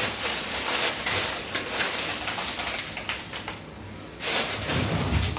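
Rustling and knocking of rummaging through a kitchen cupboard and handling a plastic packet. A second louder burst of rustling with a low rumble comes near the end.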